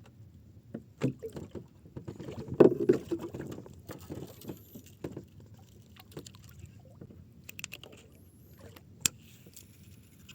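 Scattered knocks and clicks on a small fishing boat at sea, over a low steady background rumble, with the loudest cluster of knocks about two and a half seconds in and a sharp click near the end.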